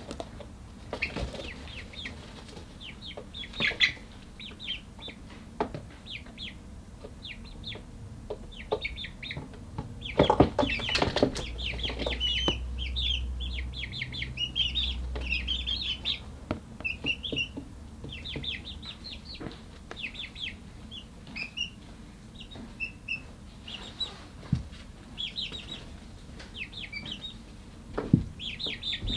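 A brood of young chickens peeping and chirping over and over in short high calls, with scattered knocks and scuffles among them, the loudest about ten seconds in.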